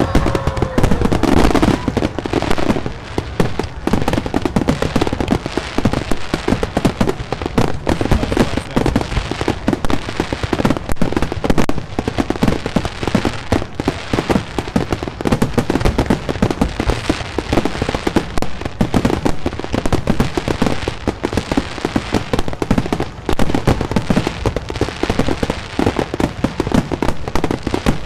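Fireworks display going off in rapid succession: a dense, continuous crackle of bangs and pops, with a falling whistle at the very start.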